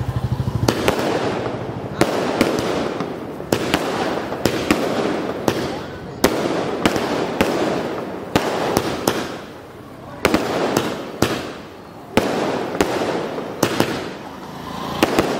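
A 30-shot multicolour aerial fireworks cake firing: a string of sharp bangs, sometimes two or three a second, with the crackle of bursting stars between them.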